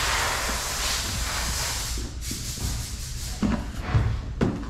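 A stack of cardboard shoeboxes is handled and set down on a counter. Cardboard rubs and scrapes as a steady rustling noise for the first couple of seconds, and a few light thumps of boxes landing come near the end.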